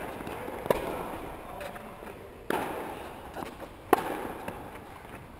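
Tennis balls struck by rackets during a doubles rally: three sharp hits about a second and a half apart, each echoing, with fainter ticks between them.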